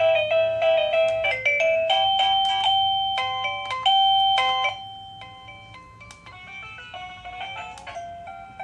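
Sinvitron wireless doorbell receiver playing one of its electronic melody chimes: a tune of simple, clean beeping notes that starts loud and drops to a quieter level about five seconds in.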